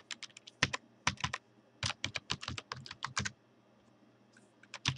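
Computer keyboard keys clicking in quick runs as a terminal command is typed, with a typo deleted and retyped along the way. The typing stops about three and a half seconds in, and a couple more keystrokes come near the end.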